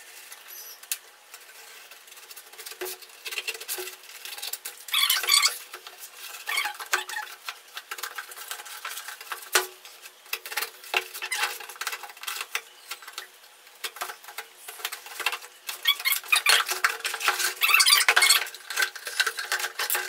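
Cardboard shipping box being cut open with a pen and unpacked: scratching and tearing at the packing tape, with cardboard scraping, rustling and knocking. There are louder tearing, sliding bursts about five seconds in and again near the end.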